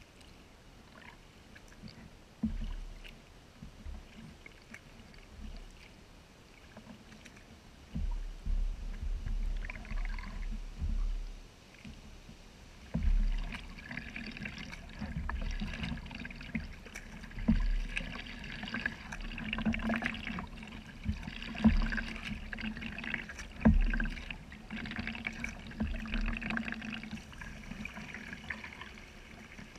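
Kayak paddling on calm water: paddle strokes splashing and dripping, with sharp knocks every few seconds. The sound grows louder and busier from about halfway through.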